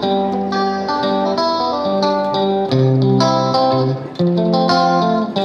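Background music with plucked string notes over held low bass notes, playing steadily.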